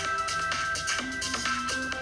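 Background music with a beat and held notes.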